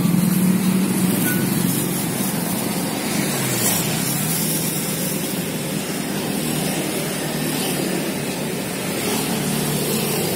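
Street traffic: motor vehicle engines running and passing, a steady hum and hiss with one engine's pitch dipping and rising again about three to four seconds in.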